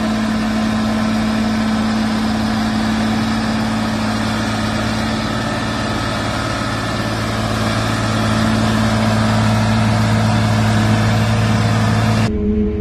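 Fendt tractor's diesel engine running at a steady speed under load, hauling a silage trailer over a pile of chopped maize. Near the end it cuts suddenly to a different machine's engine with a higher steady hum.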